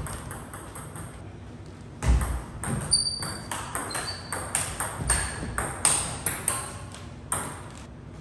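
Table tennis rally: the ball clicking back and forth off rubber-faced paddles and the table, a few hits a second, starting about two seconds in with a low thud and stopping shortly before the end. A few short high squeaks come in along the way.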